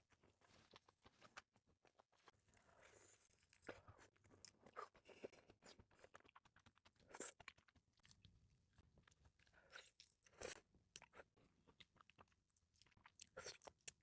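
Faint close-up chewing and wet mouth sounds of eating raw red shrimp sashimi with salmon roe mayonnaise sauce, with irregular small clicks and smacks.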